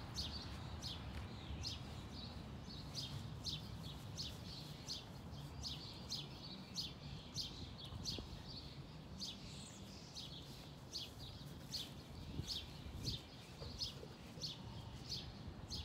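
A small bird chirping over and over, short high chirps at about two a second, over a low background rumble.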